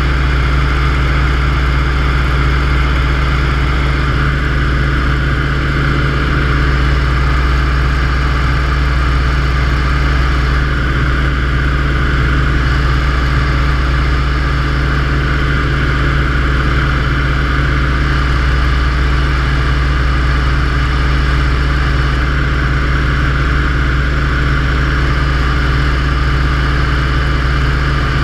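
Yakovlev Yak-52's nine-cylinder radial engine and propeller running steadily in flight, a constant low drone with airflow rush, heard from inside the cockpit.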